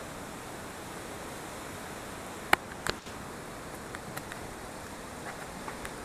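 Steady outdoor background hiss with no melody playing, broken by two sharp clicks about two and a half seconds in.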